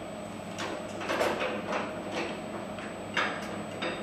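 Irregular metal clicks, knocks and scrapes from hands setting up a small metal-cutting bandsaw and the aluminum bar stock clamped in its vise. The saw itself is not running.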